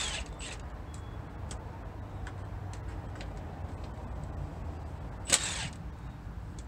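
Cordless power tool with an extension run in two short bursts, at the start and about five seconds in, backing out the transmission pan bolts. Scattered faint ticks fall between the bursts.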